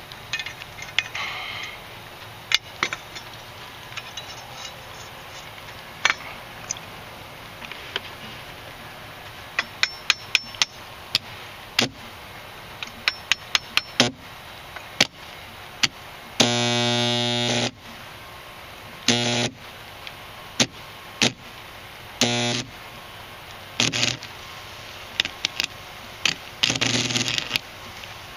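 Homemade AC stick welder built from two microwave oven transformers, striking an arc on a rusty steel blade: a string of sharp snaps and crackles as the rod touches and sparks, and several short stretches of buzzing hum when the arc catches. The longest hum, about a second long, comes past the middle. The arc keeps going out, which the welder puts down to a bad ground.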